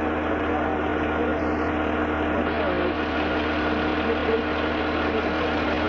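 A heavy engine running steadily with a constant low hum and a steady mid-pitched tone, the recovery crane lifting the crashed car out of the ditch.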